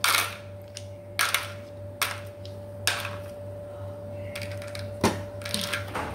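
Scattered knocks and clinks of kitchen things being handled on a counter, about seven separate hits, over a steady low appliance hum.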